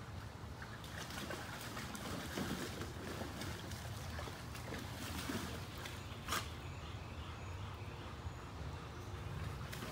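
Faint splashing and sloshing of water as a dog wades in a shallow plastic kiddie pool, with one sharper click about six seconds in.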